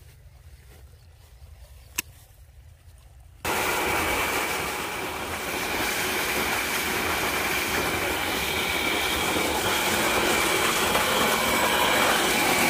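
Faint low hum with a single click about two seconds in. Then, from about three and a half seconds, a loud steady rush of water gushing from a tubewell's discharge pipe into a channel, with a steady high whine running under it.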